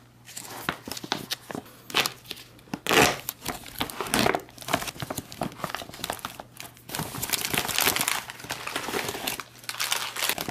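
A thick plastic military ration pouch being torn open and its plastic-wrapped contents pulled out: irregular crinkling and tearing of stiff packaging, with a loud burst about three seconds in and a long stretch of dense crinkling near the end.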